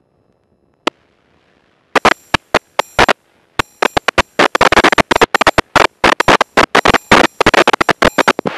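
Aircraft radio static in the headset: one click, then a long run of sharp crackles and pops that grows denser, with no voice in it.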